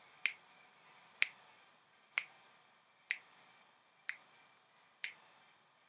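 Finger snaps keeping the beat of an a cappella song, sharp and evenly spaced at about one a second, with a couple of fainter clicks between the first two.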